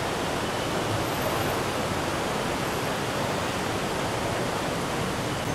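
Steady, even rush of busy city street noise, with traffic and crowd blending into one wash with no distinct events.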